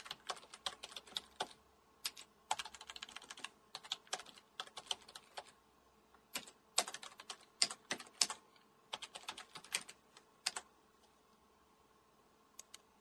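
Typing on a computer keyboard: quick runs of key clicks in bursts, with short pauses between them. The typing stops about ten and a half seconds in, and a couple of lone clicks follow near the end.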